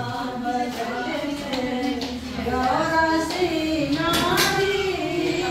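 High voices singing a song in long, wavering held notes. A couple of sharp knocks or claps sound about four seconds in.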